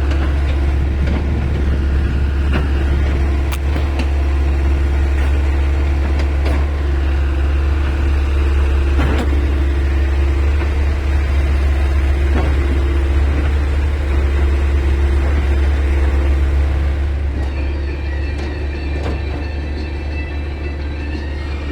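Heavy diesel engine of a JCB backhoe loader running steadily under work, with a few scattered knocks; the engine eases off about seventeen seconds in.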